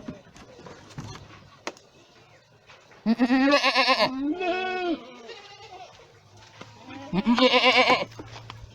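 Boer goats bleating: two loud, wavering bleats, the first about three seconds in trailing into a lower call, the second about seven seconds in, with faint knocks between them.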